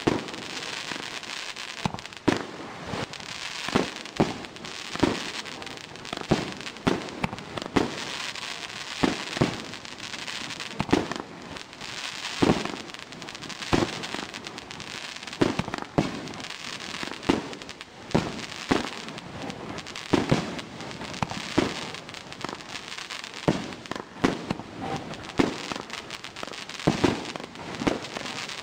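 Multi-shot aerial firework cake firing shot after shot: a sharp bang about once a second as each shell launches and bursts, with a steady hiss of burning stars between the bangs.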